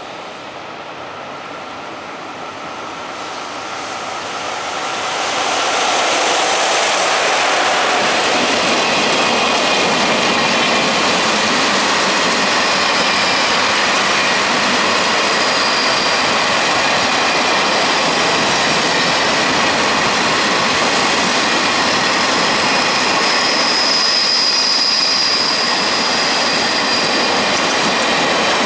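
JR Freight EF66 electric locomotive and its long freight train approaching, the noise growing over the first six seconds, then empty two-axle Wam 80000 covered wagons rolling past with a steady, loud rattling run of wheels on rail. A thin high-pitched wheel squeal runs faintly through it and is strongest near the end.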